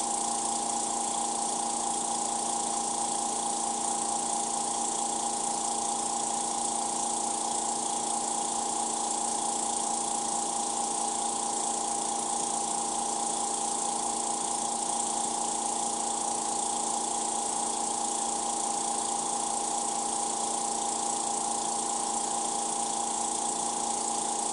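Small electric air compressor running steadily, a constant motor hum with a hiss over it, as it supplies the air pressure that pushes the urethane into the mold.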